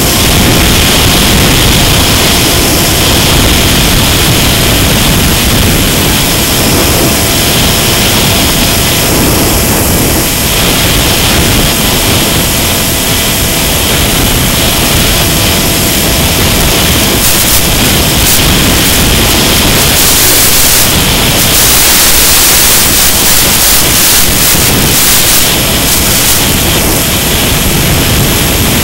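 Loud steady rushing hiss of wind and static on the onboard audio of a Mini Sky Walker FPV model plane in flight, with a faint steady whine underneath. Brief crackles break into the hiss about two-thirds of the way through.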